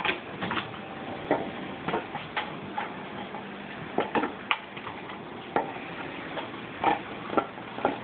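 A Petit Basset Griffon Vendéen playing with a toy: irregular light clicks and knocks, one or two a second.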